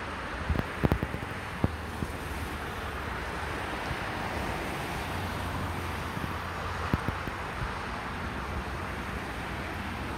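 Steady rushing of wind on the microphone, with a few small knocks from the camera being handled, the loudest a cluster about a second in.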